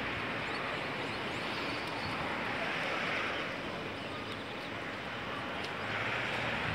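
Steady rush of road traffic, swelling twice as vehicles pass, about three seconds in and again near the end, with faint high chirps over it.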